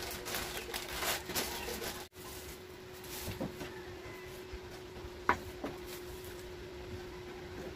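Plastic snack packets rustling as they are handled, then a few light knocks as packets and bottles are set down on a metal shelf, over a steady low hum.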